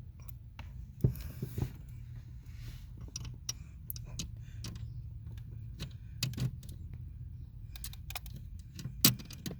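Scattered small metallic clicks and taps of a screw and hardware being fitted by hand at the brake pedal bracket, with two louder knocks about a second in and near the end, over a steady low hum.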